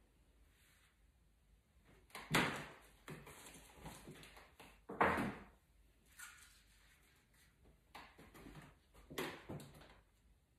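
Three dull knocks or thumps in a small room, about two, five and nine seconds in, with quieter handling noises between them, like a door or objects being moved.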